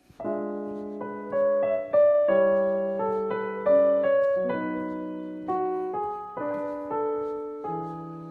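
Solo piano music: slow chords and single notes struck about once a second, each ringing and fading away.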